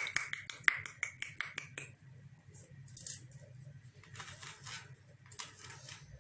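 Parrot cracking and nibbling peanuts with its beak: a quick run of sharp clicks and cracks for about two seconds, then softer, scattered crunches, over a low steady hum.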